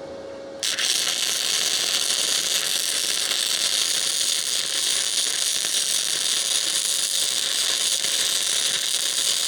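Wire-feed welder laying a continuous weld bead on heavy steel, its arc crackling and sizzling steadily. It strikes up about a second in and runs on without a break, at a raised heat setting for the thicker metal.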